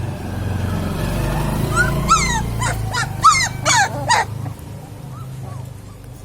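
Puppies whimpering and yipping: a quick run of short, high squeals from about two to four seconds in. A steady low hum sits underneath.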